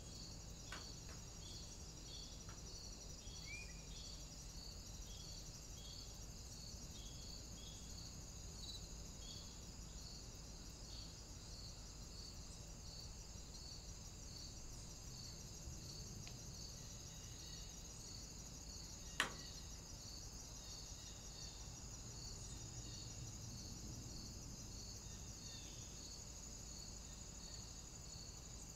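Insects chirping steadily in the woodland: a continuous high trill under a regular chirp that comes about three times every two seconds. A single sharp click sounds about two-thirds of the way through.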